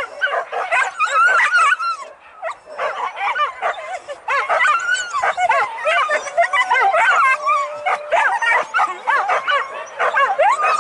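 A pack of boar-hunting dogs barking, yelping and yipping together in many overlapping voices, as hounds give tongue on a chase. There is a short lull about two seconds in.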